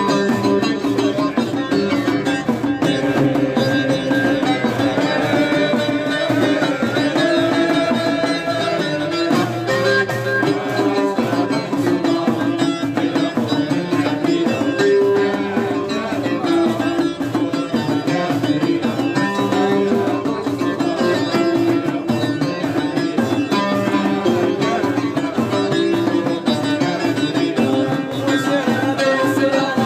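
Music with plucked string instruments and hand drums: a melody moving over a steady, dense rhythm.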